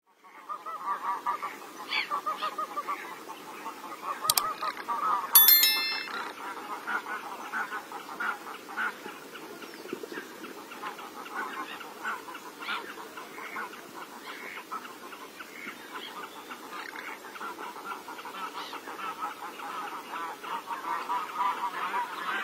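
A flock of garganey ducks calling: a dense, continuous chorus of many overlapping calls. A brief sharp ringing sound stands out about five seconds in.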